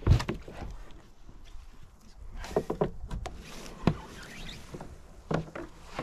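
Irregular knocks and scrapes against an orange plastic kayak as a person moves about and handles gear in it among reeds, with the loudest knocks right at the start and about four seconds in.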